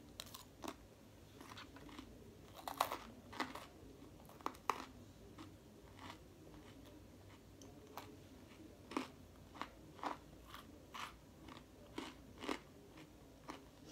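A person chewing a mouthful of salad with lettuce and chicken nugget pieces: faint crunches at irregular intervals.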